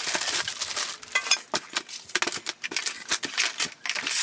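Plastic wrapping crinkling and cardboard rustling and scraping as a plastic-wrapped grille guard is lifted out of its long shipping box: a dense, irregular crackle with many small clicks.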